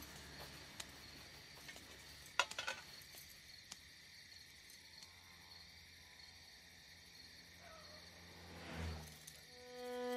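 Faint, steady insect chirring such as crickets, with a few sharp clicks about two and a half seconds in. Soft pitched music begins near the end.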